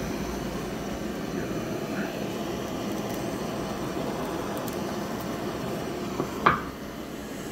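Kitchen blowtorch flame hissing steadily as it sears slices of raw olive flounder. A single sharp knock comes about six and a half seconds in, and the noise drops after it.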